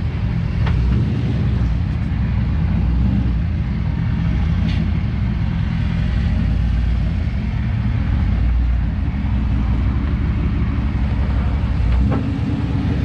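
Ford 460 big-block V8 of a pickup truck running steadily with a low rumble, with a couple of light clicks; the engine note shifts about twelve seconds in.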